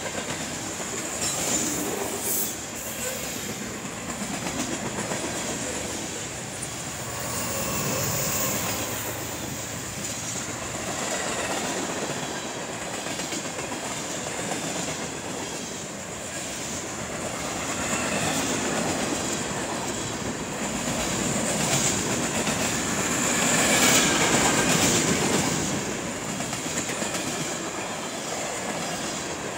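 Freight train of hopper, tank and box cars rolling past at speed, steel wheels clattering over the rail joints, with a thin high wheel squeal. The train grows louder about three quarters of the way in.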